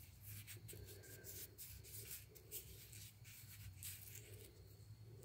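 Faint, irregular rubbing and light scraping as a small quartzite polishing stone is handled and turned over in the hands, over a low steady hum.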